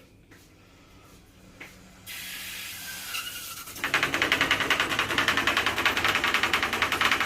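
A water tap is opened. About two seconds in, water starts hissing through it; about four seconds in, a loud, rapid, even rattling knock sets in, several pulses a second. This is water hammer vibrating in the tap head.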